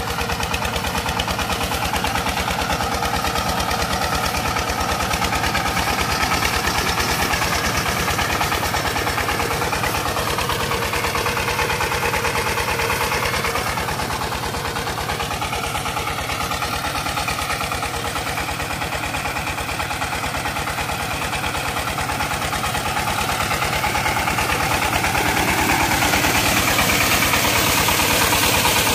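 A small diesel engine runs steadily with a fast, even knocking beat as it drives a belt-driven centrifugal irrigation pump, with water gushing out of the outlet pipe under it. It grows louder near the end.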